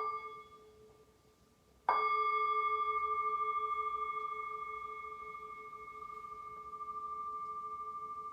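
Singing bowl struck twice: the first strike fades within about a second, and the second, louder one about two seconds in rings on with a steady, slowly wavering hum, its two main tones fading only gradually.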